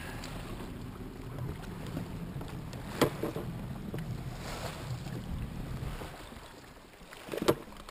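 Bombardier Sea-Doo jet ski idling at low speed with a steady low rumble that fades away about six seconds in. Two sharp knocks stand out, one about three seconds in and one near the end.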